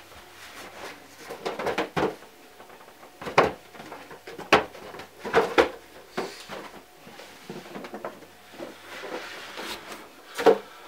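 Rummaging and handling of packaging: a series of knocks and clatters, with rustling of a cardboard box near the end as it is pulled out.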